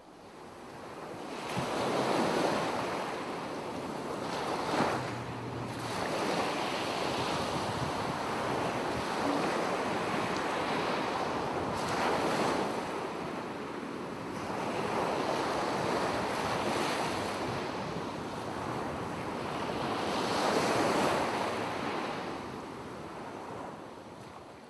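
Ocean waves washing: a rushing noise that swells and ebbs every few seconds.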